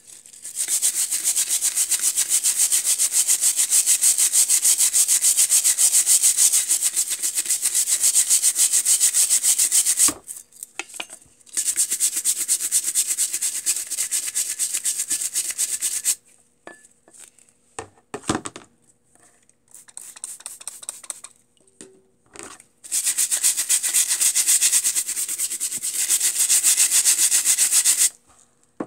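Stiff scrub brush scrubbing a vintage pipe wrench's parts in a bucket of cleaning solution with rapid back-and-forth strokes, scraping off old grease and grime. The scrubbing comes in three long spells, with brief pauses of small knocks and splashes between them.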